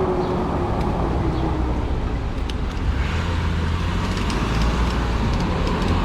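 Steady low rumble of riding an e-bike along a road, with road and traffic noise.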